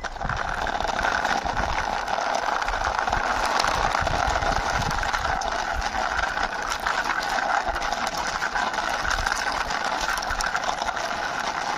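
Small toy car pushed along by hand, its wheels and mechanism giving a steady whirring rattle.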